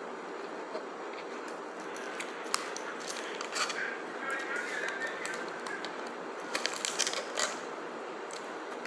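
Metal fork scraping and clicking against an aluminium foil takeaway container while scooping rice and spaghetti, in short clusters about three seconds in and again about seven seconds in, over a steady background hiss.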